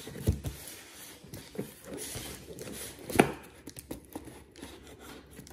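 Scissors slitting the packing tape along a cardboard box's seam: scraping and tearing with scattered small clicks, and one sharper click about three seconds in.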